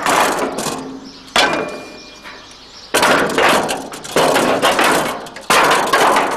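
Rusty sheet-steel car body panel being wrenched free and handled, making about five loud crashing, rattling clangs that each die away over a second. After the second one the metal briefly rings.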